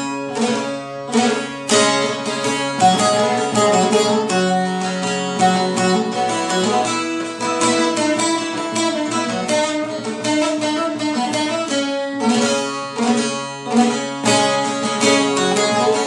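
Instrumental music: a plucked string instrument playing a quick run of notes over held tones.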